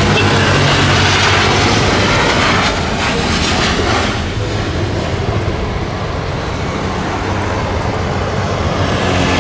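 Jet airliner engines at high thrust, a loud steady rush of noise with a low hum underneath and a faint high whine falling about three to five seconds in, easing slightly after that.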